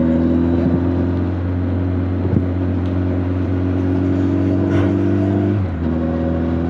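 Honda CB1300 Super Bol d'Or's inline-four engine and exhaust running at steady revs, picked up from a mic in the rider's back protector pocket. The pitch drops slightly about five and a half seconds in.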